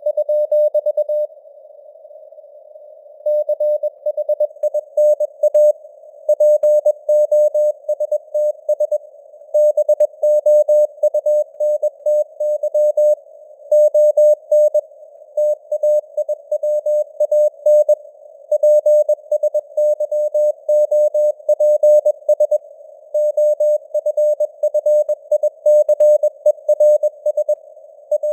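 Morse code (CW) sent at 21 words per minute: a single mid-pitched tone keyed on and off in dots and dashes, with short pauses between words. It sits in a narrow band of simulated radio hiss, and the signal strength varies as simulated fading (QSB).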